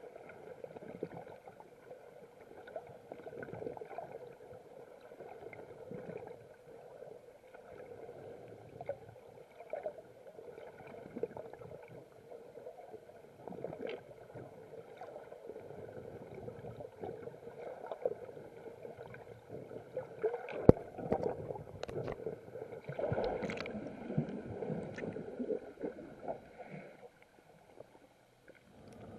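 Muffled underwater audio from a camera held below the surface: a steady wash of water with scattered small clicks. From about two-thirds of the way in it grows busier with bubbling and handling knocks, the sharpest knock being the loudest sound.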